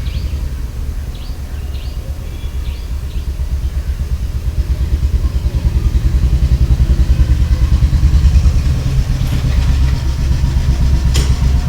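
Engine of a passing motor vehicle: a low, rapidly pulsing engine sound that grows louder toward the middle and eases off near the end. Small birds chirp over it in the first few seconds.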